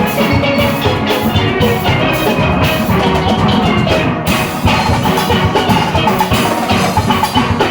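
Steel orchestra playing at full volume: many steel pans striking fast melodic runs over a driving drum-kit and percussion rhythm.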